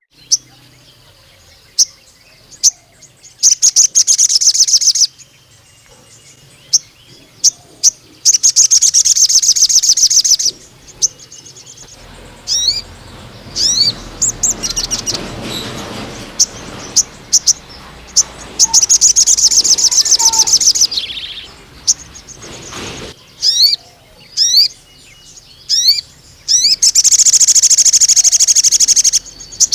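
A sogon, a sunbird, singing in full voice: four long, very fast, high trills, the 'nembak panjang' song, with sharp single chirps in between. A rushing hiss of background noise runs under the middle of the song.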